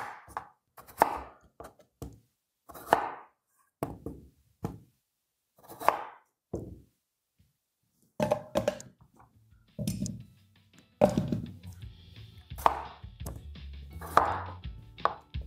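Potatoes being peeled and cut on a wooden cutting board: separate scraping and chopping strokes, roughly one a second. A little past the middle, background music comes in under the knife strokes.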